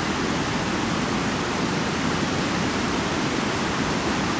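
River water rushing over a shallow rocky riffle: a steady, unbroken noise.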